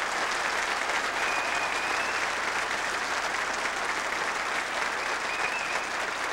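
Large audience applauding steadily, with two brief high-pitched tones over the clapping.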